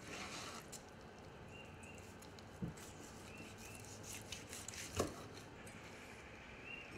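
Kitchen knife slicing through a pork sirloin roast on a wooden cutting board: soft cutting and scraping with small clicks, and two knocks of the blade against the board, the louder one about five seconds in.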